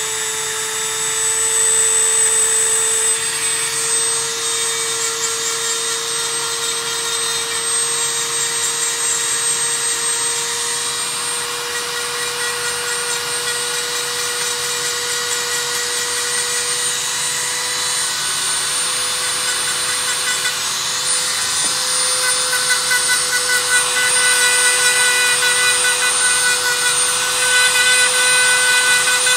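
Handheld electric rotary nail drill running steadily with a small burr, grinding down thickened toenails. Its motor whine holds one steady pitch that creeps up slightly, and it gets a little louder in the last few seconds.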